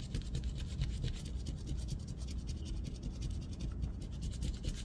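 A coin scraping the coating off a scratch-off lottery ticket in rapid, repeated back-and-forth strokes.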